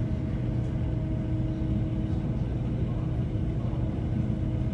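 Steady low rumble of a large car ferry under way, a constant engine and machinery hum, with wind blowing on the microphone.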